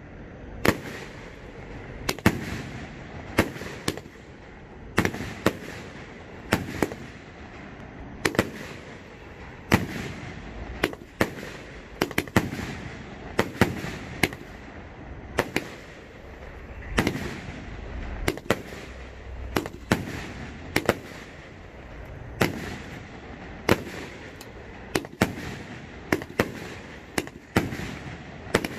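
A 36-shot firework cake firing its shells in sequence, each going off as a sharp bang, often in close pairs, with roughly one or two reports a second throughout.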